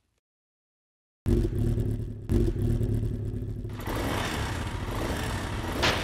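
Motorcycle engine sound effect. After a second of silence the engine starts suddenly and revs again a moment later, then keeps running with a louder, rougher note as the bike pulls away.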